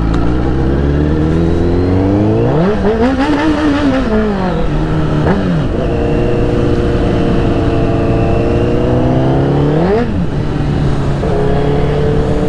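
Honda CBR1000RR's inline-four engine revving under throttle: its pitch climbs over the first three seconds and falls away, holds fairly steady, then rises sharply about ten seconds in and drops back.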